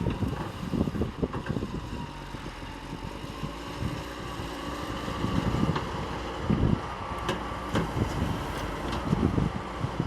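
Excavator's diesel engine running steadily with a wavering whine, overlaid by gusty wind buffeting the microphone and a few sharp clicks in the second half.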